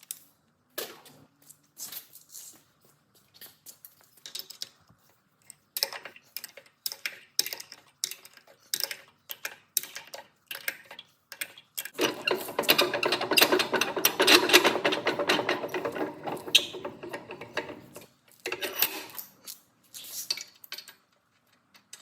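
Metal tools and parts clicking, knocking and clattering in hands-on workshop work, with a denser stretch of rapid rattling and scraping about halfway through that lasts several seconds.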